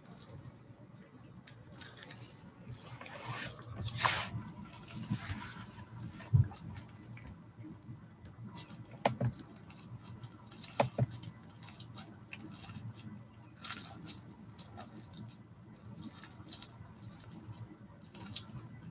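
Scattered rustling and light clicks of a person shifting and touching things close to the microphone, with a few sharper clicks now and then.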